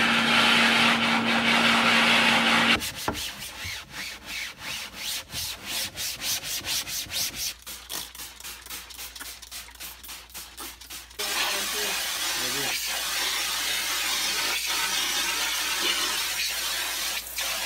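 Water spray gun hissing against a silkscreen, with a steady low hum under it. After about three seconds it gives way to rapid back-and-forth scrubbing strokes on the screen, then the spray hisses steadily again from about 11 seconds: red ink being washed out of the screen.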